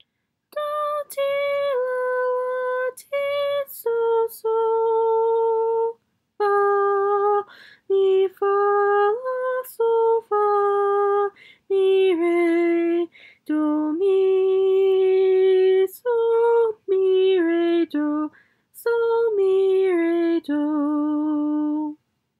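A woman's voice singing an unaccompanied melody from a sight-singing exercise: a string of held notes broken by short breath pauses, stepping gradually lower and ending on a longer low note.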